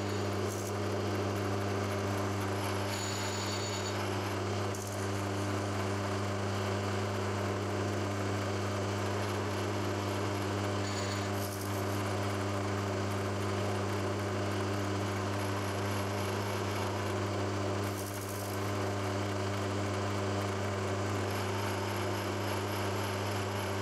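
Milling machine spindle running steadily with a low, even hum while an edge finder turns in it, locating the edges of a steel block. A few short, faint scratchy sounds rise over the hum now and then.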